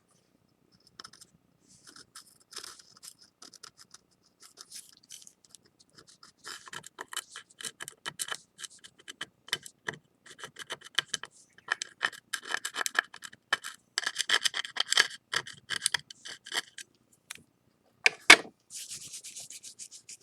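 Wet sandpaper rubbing in quick short strokes over a ceramic plate, sanding excess urushi lacquer off a kintsugi repair. The strokes are sparse at first and grow dense and steady after about six seconds, with one sharp knock near the end.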